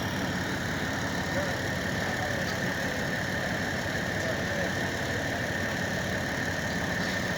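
An engine running steadily without change, with a thin steady whine on top.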